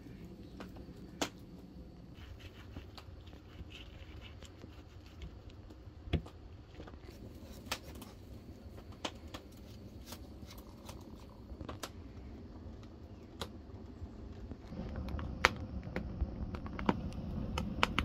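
Irregular sharp clicks and light knocks of kitchen handling during food preparation, about one every second or two, over a low rumble that grows louder near the end.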